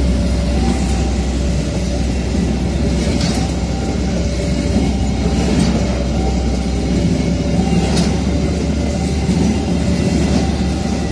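Empty flat wagons of a freight train rolling past, with a steady rumble and a sharp wheel clack over rail joints about every two and a half seconds. A level-crossing warning alarm sounds throughout, repeating two alternating tones.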